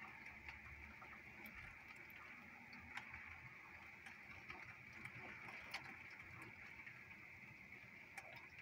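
Faint rain: raindrops ticking irregularly against a window pane over a steady hiss of falling rain.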